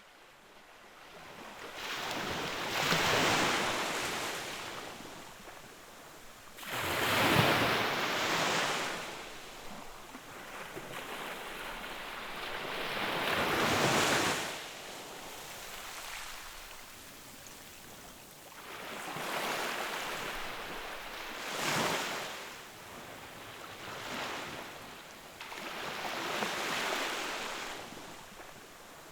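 Ocean waves breaking and washing in, in slow surges that swell and fade about every five to seven seconds.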